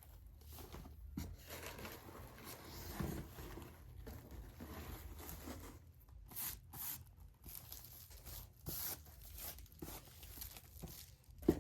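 Rustling and crinkling of shredded-paper packing as it is handled and pulled out of a box. There are a few sharper crackles or tearing sounds in the second half.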